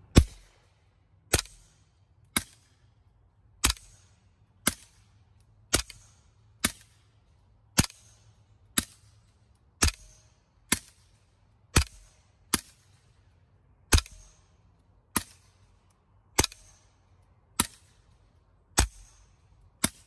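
Suppressed 9mm subsonic gunshots, about nineteen of them at roughly one a second, alternating between a CZ Scorpion Evo SBR with a recored aluminium Form 1 suppressor firing LAX 165 grain and a Glock 17 with a Rugged Obsidian suppressor firing HUSH 147 grain. Each shot is a sharp crack with a brief tail.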